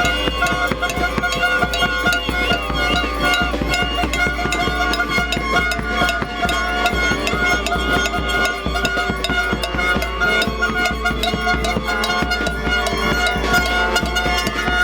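An orchestra of hand-held air horns blowing together: many steady horn tones at different pitches sound at once in held chords. Quick clicks run through it.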